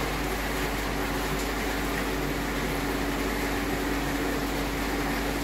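Steady mechanical hum with a constant hiss from running machinery, unchanging throughout.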